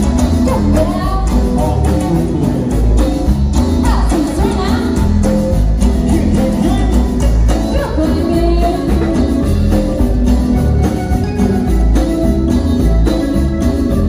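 Latin tropical band music played live, with singing over a steady bass and percussion beat and an accordion.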